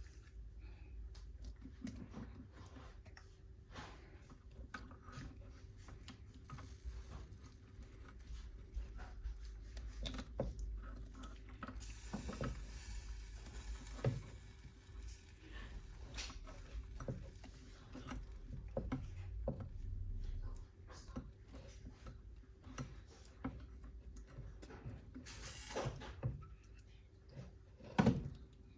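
Kitchen handling noises: scattered light clicks and knocks over a low steady hum that stops about twenty seconds in, with a brief hiss near the middle and a louder knock near the end.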